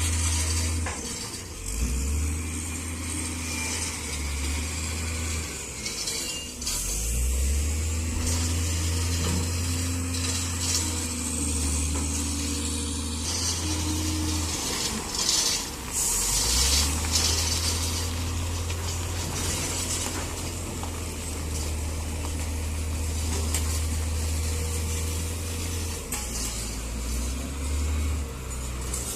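Hitachi excavator's diesel engine working under changing load, its drone easing off and picking up again several times, while the bucket scrapes into and pours loose shells with a rattling, hissing clatter that is loudest about halfway through.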